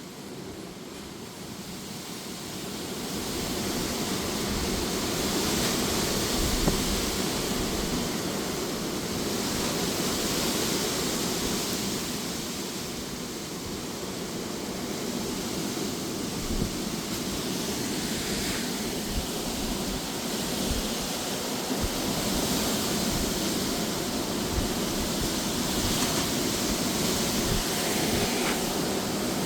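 Strong, gusty wind with rain: a steady rush that builds over the first few seconds, then swells and eases as the gusts come and go.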